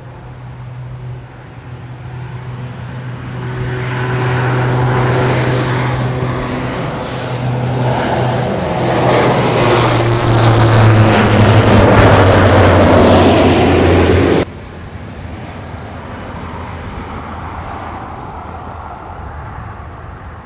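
Lockheed WC-130J Hercules's four Rolls-Royce AE 2100 turboprops and six-bladed propellers droning as the aircraft flies low overhead. The sound grows louder as it approaches, and the propeller drone falls in pitch as it goes by. About two-thirds of the way through the sound drops abruptly to a quieter drone as the aircraft moves away.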